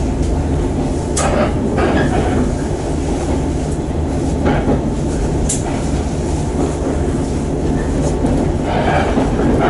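Electric commuter train running, heard from inside the carriage: a steady low rumble, with a few sharp clicks from the wheels.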